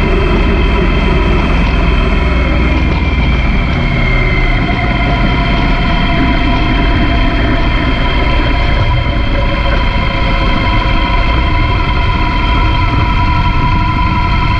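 BMW R 1200 GS Adventure's boxer-twin engine running at road speed under heavy wind rush on the microphone, with a steady engine drone. The engine note eases down slightly a few seconds in.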